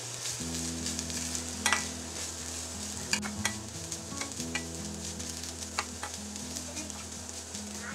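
Metal spoon stirring grated coconut frying in ghee in a stainless steel pot: scattered scrapes and clicks of the spoon against the pot over a light, steady sizzle. Soft background music with low notes comes in about half a second in.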